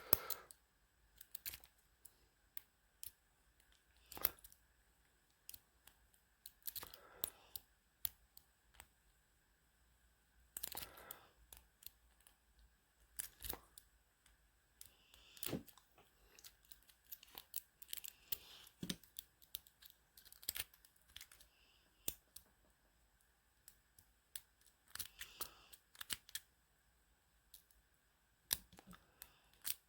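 Lock pick and tension wrench working a Master Lock pin-tumbler padlock: scattered light metal clicks and short scratchy scrapes as the pick moves over the pins.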